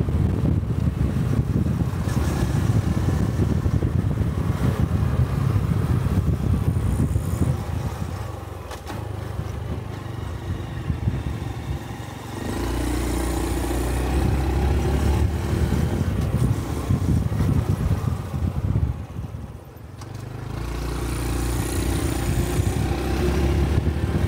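Honda Cub 125 cc single-cylinder motorcycle engine running under way, with wind rushing over the microphone. The engine eases off about eight seconds in and again near twenty seconds, then pulls back up each time as the bike accelerates.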